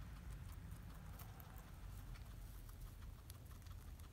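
Guinea pig chewing hay: faint, quick, irregular crunching clicks over a low steady rumble.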